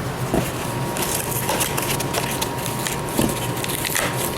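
Parts packaging being handled and pulled open by hand: a run of crinkling and crackling with many scattered small clicks.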